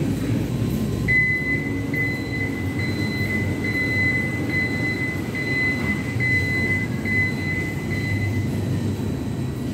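Mitsubishi freight elevator's vertical bi-parting doors closing: a high warning beep pulses about one and a half times a second from about a second in until near the end, over a low steady rumble of the door drive.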